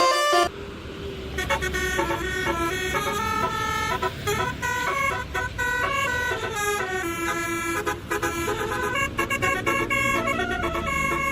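Telolet musical horn on a truck or bus, playing a stepping multi-tone tune over the rumble of a running engine.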